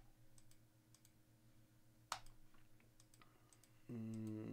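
Faint, scattered clicks of a computer keyboard and mouse, with one sharper click about two seconds in. Near the end, a man's short, steady hum.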